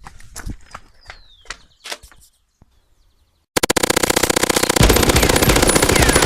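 Scattered small sharp snaps and crackles for about two seconds, then a brief silence. About three and a half seconds in, a loud electronic music track with a rapid machine-gun-like stutter beat cuts in suddenly.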